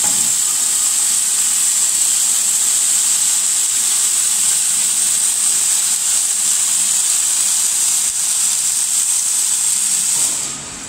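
Several wire-feed (MIG) welding torches on an automatic rack-beam welding machine arc-welding at the same time: a loud, steady hiss that stops about ten seconds in as the weld cycle ends.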